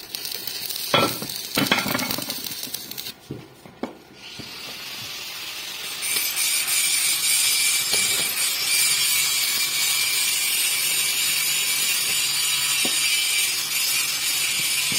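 Stick (MMA) arc welding on a steel plate with a Bossweld 230-amp welding machine. The arc strikes with a few sharp cracks in the first seconds. From about four seconds in it settles into a steady, frying crackle, louder and hissier from about six seconds on.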